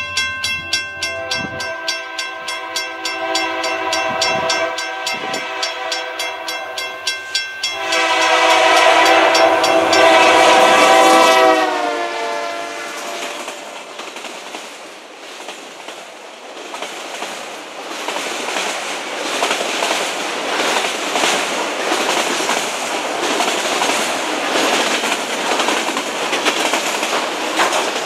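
A grade-crossing bell dings rapidly while a locomotive's Nathan K3LA chime horn sounds, getting loud about eight seconds in and dropping in pitch as the locomotive passes. The horn stops, and the freight cars roll by with steady wheel clatter.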